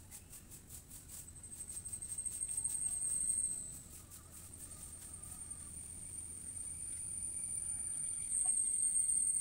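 Insects buzzing in a high, steady drone: rapid pulses at first that merge into a continuous buzz, which grows louder, drops briefly about four seconds in, then swells again.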